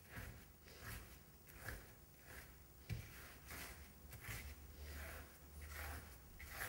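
Large round paintbrush scrubbing back and forth across a canvas: a faint, dry, rhythmic swishing of about one stroke every two-thirds of a second, over a low steady hum.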